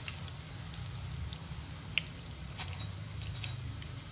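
Hot oil sizzling and crackling with scattered small pops around chicken shami kababs shallow-frying in a pan, with one sharp click about halfway through.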